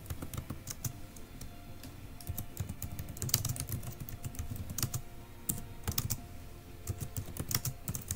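Typing on a computer keyboard: a run of irregularly spaced keystroke clicks.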